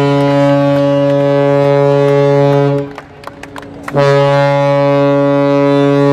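Ship's horn sounding two long, steady blasts with about a second's pause between them; the second blast is still sounding at the end.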